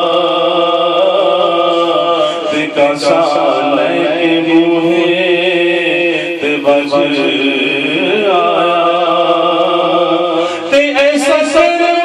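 A man singing an Urdu naat (devotional chant) into a microphone. He holds long, drawn-out notes and breaks briefly between phrases.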